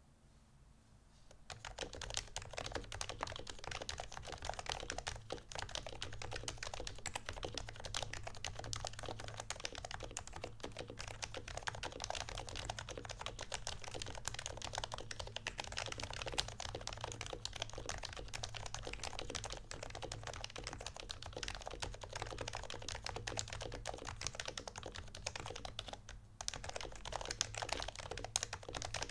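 Continuous fast typing on an HHKB Pro 2 Topre keyboard with aged rubber domes and lightly lubed, silenced sliders. It begins about a second and a half in, with a brief pause near the end.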